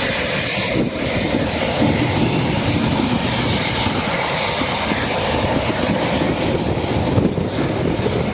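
Jet aircraft engines running steadily on the ground as an even, loud noise.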